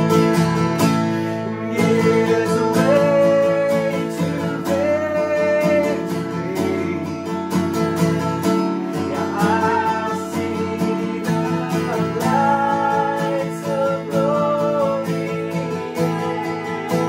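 Acoustic guitar strummed as accompaniment while a woman and a man sing a gospel hymn, holding long notes.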